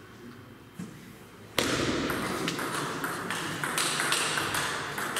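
Table tennis rally: the ball's quick sharp ticks as it is struck by the rackets and bounces on the table, coming every few tenths of a second from about a second and a half in, after a single tap earlier. There is a steady hall background under it.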